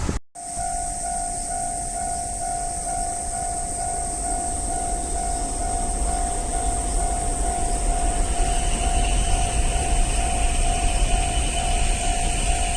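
Japanese level-crossing warning bell ringing in quick, even repeated strokes on one steady pitch, over a low rail rumble that slowly grows louder. The sound cuts out for a moment just after the start.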